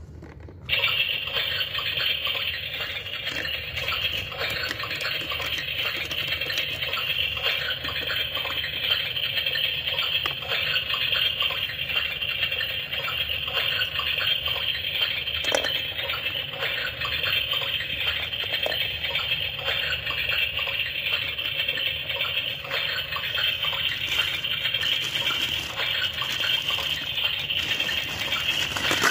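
Electronic sound effect from a toy play kitchen's stove, a steady hiss that switches on abruptly about a second in after a burner knob is pressed. Plastic crinkles faintly near the end.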